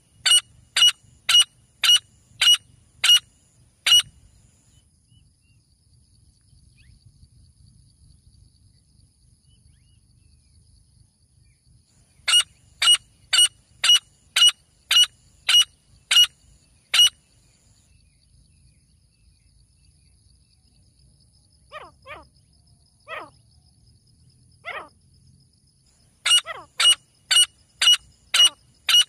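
Male grey francolins calling: bouts of loud, shrill notes repeated about twice a second, each bout lasting four to five seconds. Three bouts come at the start, in the middle and near the end, with a few fainter, lower calls shortly before the last one.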